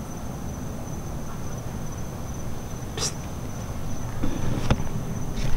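Crickets trilling, a single steady high tone, with two sharp clicks about three seconds and four and a half seconds in.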